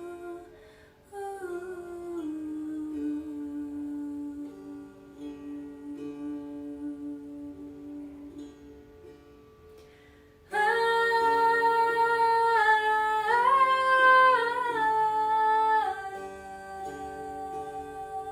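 Meditative music: slow, sustained hummed and sung vocal tones over a soft plucked-string accompaniment. About ten seconds in, a louder voice comes in holding long notes that step up in pitch and then drop back down near the end.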